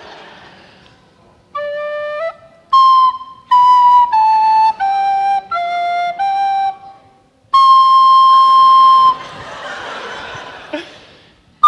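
Recorder playing a short tune: two soft low notes, then a run of short notes stepping downward, then one long held high note. A swell of audience noise follows near the end.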